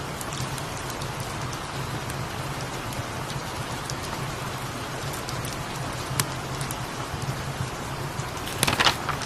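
Steady rain pattering, with a low steady rumble underneath and scattered light ticks and crackles. Near the end comes a brief cluster of sharper crackling rustle.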